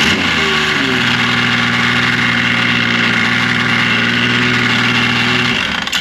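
2005 Yamaha Vector snowmobile's four-stroke four-cylinder engine idling with its primary clutch rattling, a known factory fault in this clutch that Yamaha's repair kit cures. The engine speed wavers briefly at first, then holds steady until the engine is shut off near the end.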